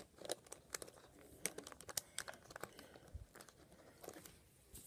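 Irregular faint clicks and scrapes of plastic Lego pieces being handled and pressed together, as a white plate is pushed down onto a black train-car chassis.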